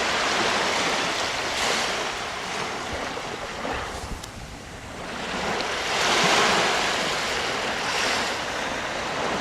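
Sea waves breaking and washing up on a sandy beach, the surf swelling and ebbing, with its loudest wash about six seconds in.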